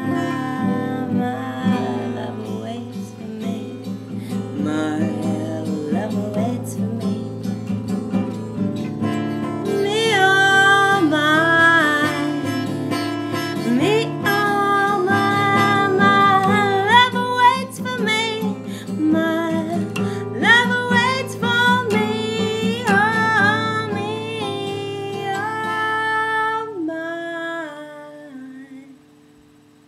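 Acoustic guitar strummed in steady chords with a woman singing over it; her voice comes in about a third of the way through, and near the end the song finishes as the last chord rings out and fades.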